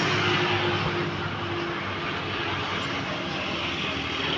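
A steady machine drone with a hiss over it, its low tones wavering slightly in pitch.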